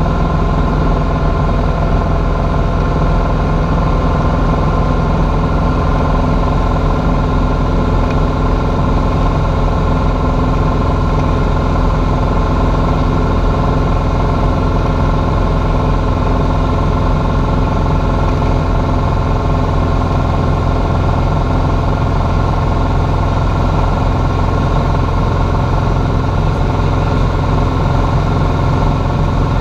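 Cessna A150 Aerobat's four-cylinder Continental O-200 engine and propeller running at a steady cruise setting, heard from inside the cockpit as a constant hum with rushing air noise over it.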